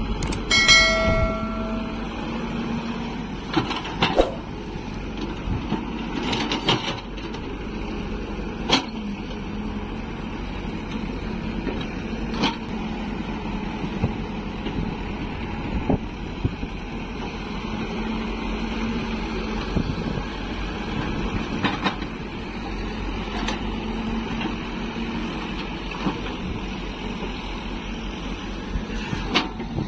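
Hyundai 140 hydraulic excavator's diesel engine running steadily while it digs, with sharp knocks and clanks from the bucket and boom every few seconds. A short ringing tone sounds about half a second in.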